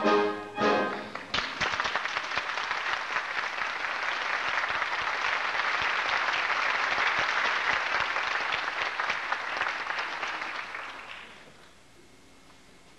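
The orchestra's music ends about a second in and a theatre audience breaks into applause, which holds steady and then dies away near the end.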